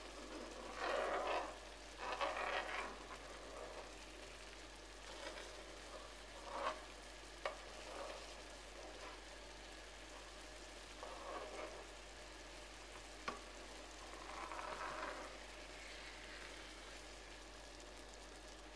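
Eggs cooking in tomato sauce sizzle steadily in a frying pan, while a metal spoon scrapes and stirs through the sauce in several short spells. The spoon also clinks sharply against the pan twice.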